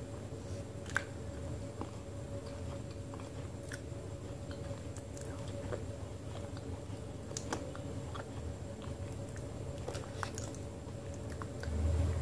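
Soft, sticky mouth sounds of eating a thick paste of Multani mitti (fuller's earth clay): scattered small wet clicks and smacks over a faint steady hum, with a short, louder low sound near the end.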